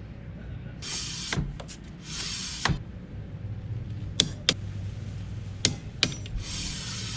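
Hand-tool work on a motorcycle front brake caliper: sharp metallic clicks and knocks, with three short bursts of hiss over a steady low hum.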